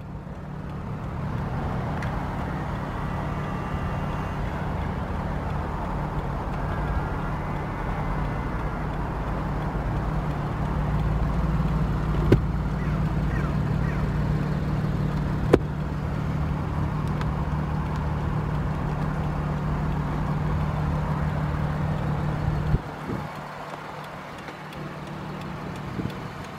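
A vehicle engine idling steadily with a low, even hum that cuts off suddenly near the end, as if switched off. Two sharp clicks sound partway through.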